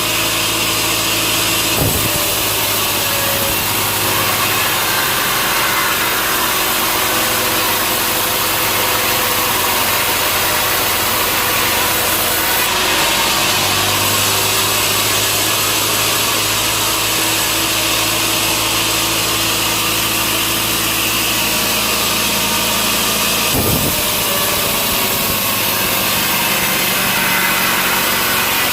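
Sawmill machinery running steadily: a saw cutting through a log over the drone of an engine. Two brief knocks, one about two seconds in and one about three quarters of the way through.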